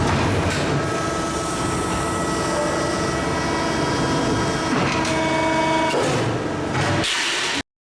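Maru Kikai 300-ton press brake running: a steady mechanical din with several whining tones that change pitch about five seconds in, cut off abruptly near the end.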